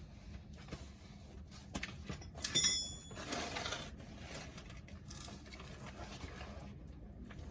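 Small handling noises and clicks over a steady low hum, with one sharp metallic clink that rings briefly about two and a half seconds in, followed by a short rush of noise.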